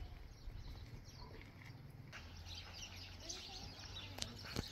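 Faint outdoor ambience: a low steady rumble, then birds chirping from about halfway through, with two sharp clicks near the end.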